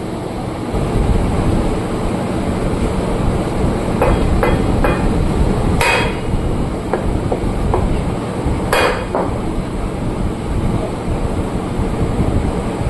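A hammer striking metal: a handful of sharp blows, in a cluster from about four to six seconds in and again near nine seconds, over a steady low rumble. The blows fall during work on a tractor's rear axle bearing and oil seal.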